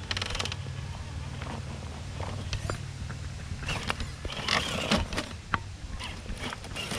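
Traxxas TRX-4 RC crawler working over rocks: a low drivetrain hum through the first half, with scattered clicks, crunches and clatter of tires and loose rocks.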